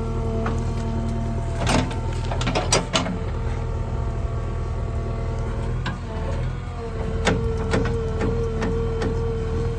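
JCB 3DX backhoe loader's diesel engine running steadily under hydraulic load, with a steady whine that dips briefly about six seconds in and comes back. Several sharp knocks sound over it.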